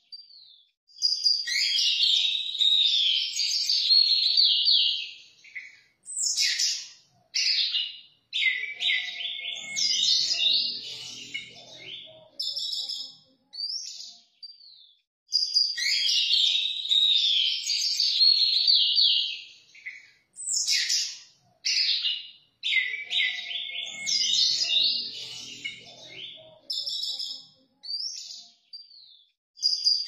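Orange-headed thrush (anis merah) singing: long phrases of varied, rapid whistles and trills broken by short pauses. The same run of phrases comes round again about halfway through.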